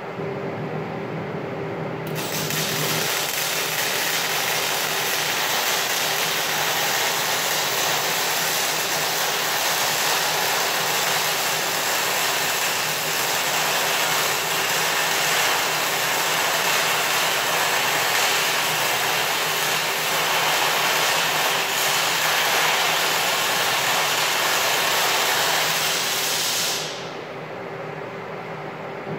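MIG welding arc on steel, a steady hiss that strikes about two seconds in and runs unbroken for some 25 seconds before stopping near the end. A steady hum sounds under it throughout.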